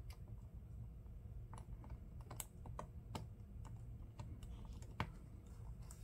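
Faint, irregular small clicks and taps from a precision screwdriver being worked at a laptop screen's mounting screw, with hands over the keyboard; one sharper click about five seconds in.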